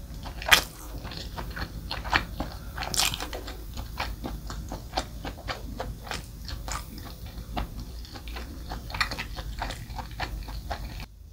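Close-miked chewing of food, many short sticky mouth clicks, dying away just before the end.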